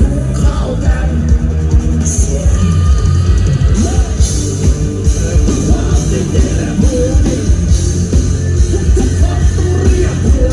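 Rock band music played loud through a large PA sound system, with heavy bass and drums.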